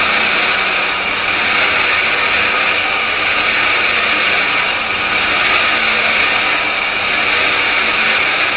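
Heavy-duty lathe machining a paper-machine dryer shell roll: a steady, loud hiss-like cutting noise with a faint low hum underneath.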